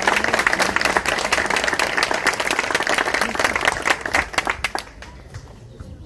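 Audience applauding with a crowd's dense clapping, which dies away about five seconds in.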